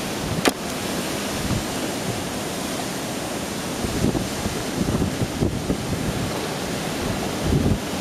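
Microburst wind gusting hard through trees: a steady loud rush with low buffeting on the microphone, and a single sharp click about half a second in.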